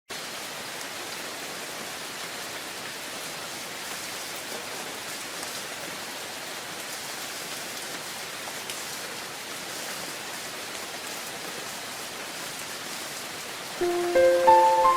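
Steady, even rainfall. Near the end, several ringing chime-like notes come in over it and hold.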